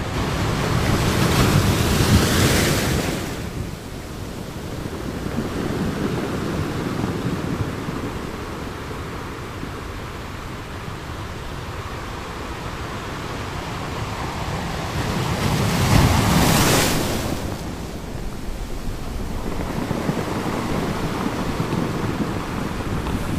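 Sea waves washing against shoreline rocks in a steady rush, with two louder surges of breaking water about two seconds in and again about sixteen seconds in. Wind buffets the microphone.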